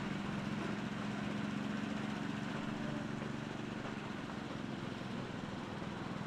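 Small petrol engine of a 7¼-inch gauge miniature railway locomotive running steadily with an even low hum.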